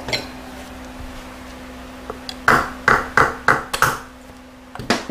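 Sharp metallic knocks of tools against a 68RFE transmission's clutch drum as its snap ring is worked off: five in quick succession about two and a half seconds in, then one more near the end.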